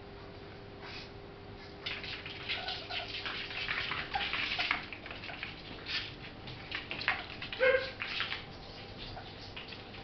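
A ferret scuffling and scampering about on carpet, giving a run of irregular rustling, scrabbling noises from about two seconds in. A short squeak sounds near the end of the run.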